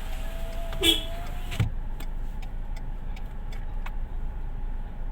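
Car running with a steady low rumble. A steady whine and hiss cut off with a click about one and a half seconds in, and light ticking follows.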